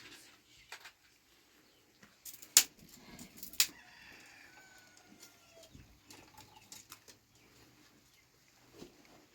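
Two sharp knocks about a second apart, then faint falling bird calls.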